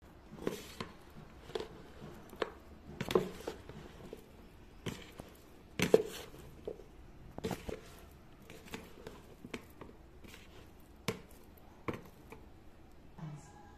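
A spatula and a metal fork knocking and scraping against a plastic mixing bowl as half-cooked potato sticks are tossed in flour: irregular taps and clicks, one or two a second, the loudest about six seconds in.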